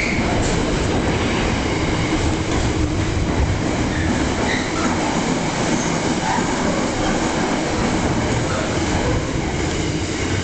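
Container freight train's wagons running past close by: a steady, loud rumble and rattle of wheels on the rails that holds throughout.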